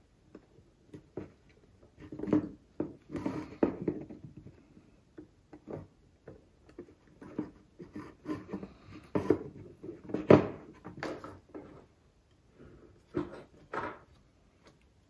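Hands working small parts of a Minelab Excalibur II metal detector during a repair: irregular clicks, taps and short scrapes, with a sharper knock about ten seconds in.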